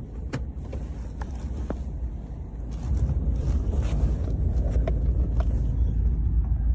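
Vehicle driving across rough pasture: a steady low engine and road rumble that grows louder about three seconds in, with scattered light rattles and knocks.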